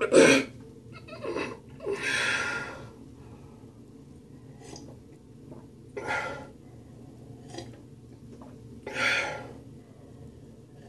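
A man gasping and blowing out breath hard through the mouth between sips of hot apple cider vinegar water, his reaction to the sour taste: a sharp gasp right at the start, a longer exhale about two seconds in, and two more near the middle and end.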